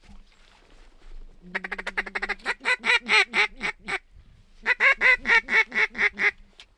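Mallard-style duck quacking, loud and close: two long runs of rapid quacks, the first starting about a second and a half in, the second after a short pause near the middle.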